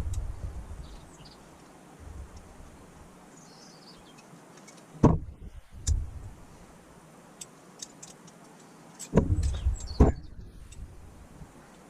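Parts of a Holley four-barrel carburettor being handled and fitted together on the bench: a few sharp knocks in two pairs, about five to six seconds in and again about nine to ten seconds in, with light clicks and ticks between.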